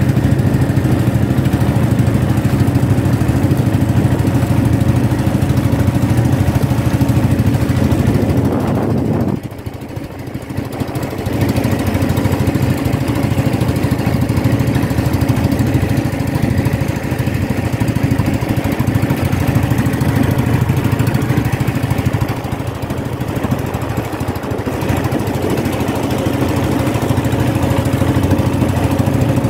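Small engine of a motorised outrigger boat (bangka) running steadily under way at sea. About nine seconds in it drops off briefly and then picks back up to its steady level.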